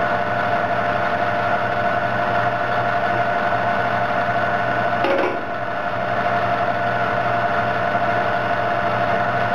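Caterpillar 651B scraper's diesel engine idling steadily, with a constant whine over the engine note. A short burst of noise about five seconds in.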